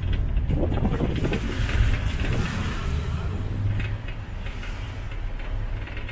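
Tuk-tuk engine and road noise heard from aboard the moving vehicle: a steady low rumble that swells louder in the first seconds and eases off after about four seconds.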